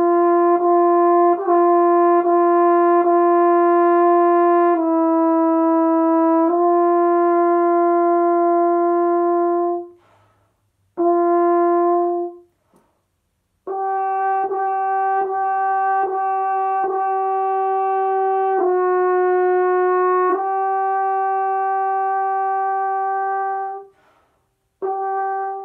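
French horn playing a long tone exercise. Four tongued notes lead into a slur down a half step and back to a long held note, then after a short rest a brief check note on the same pitch. The whole pattern then repeats a step higher.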